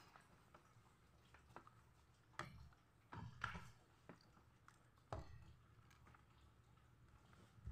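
Near silence with a low hum, broken by a few faint short clicks and taps.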